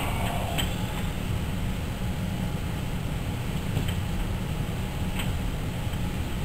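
Steady low rumble of shop background noise, with a few faint clicks spaced a second or more apart as a hand-pushed boring-bar cutter strokes along the steel gear blank in the lathe.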